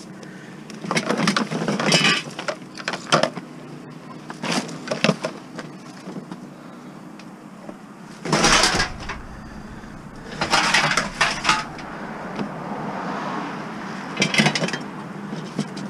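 A child's metal bicycle clattering and rattling as it is pulled from a junk pile and loaded into a van: several separate knocks and rattles, the loudest about eight and a half seconds in.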